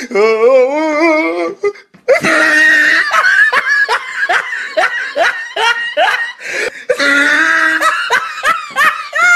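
People laughing hard: a long wavering vocal sound at first, then from about two seconds in a fast run of loud, repeated laughs.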